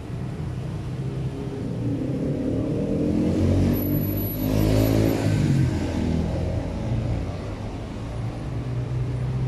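A motor vehicle's engine running close by, swelling to its loudest about four to five seconds in as it passes, then fading back.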